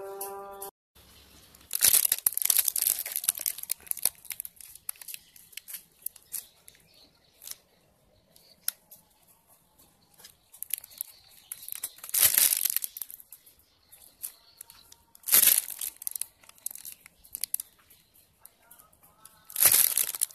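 Plastic piping bag crinkling and rustling in irregular bursts as it is squeezed by hand to pipe whipped cream, with small clicks in between. The loudest bursts come about two seconds in, around twelve and fifteen seconds, and near the end.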